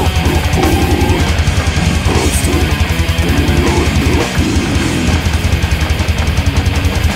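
Heavy metal song: distorted electric guitars over a drum kit, with a rapid, even kick-drum pulse driving the low end.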